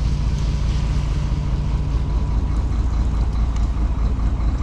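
Fishing boat's engine running steadily: an even, low drone with no change in speed.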